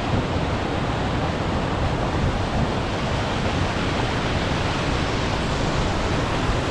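Small waterfall on the River Dane pouring into a pool: a steady, dense rush of falling water.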